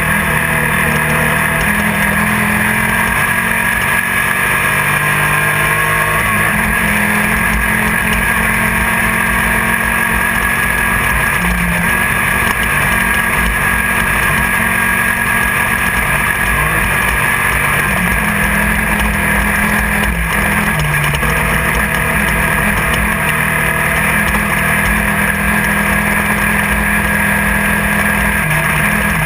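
Class 1600 off-road race car's air-cooled VW 1600 cc engine running hard inside the open cabin, its speed rising and falling with throttle and gear changes, over constant rattle and road noise and a steady high whine.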